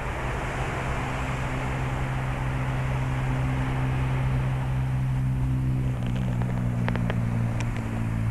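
A motor running steadily as a low, even hum, with a few faint clicks in the last couple of seconds.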